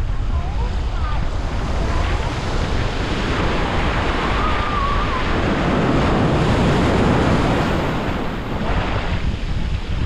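Atlantic surf breaking and washing up the beach, swelling to its loudest about six to seven seconds in and easing off near the end, with wind rumbling on the microphone.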